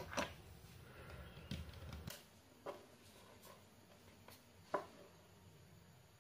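Faint handling noise: a few scattered small taps and clicks of parts and tools being handled and set down on a wooden tabletop, the sharpest near the end. A faint low hum stops abruptly about two seconds in.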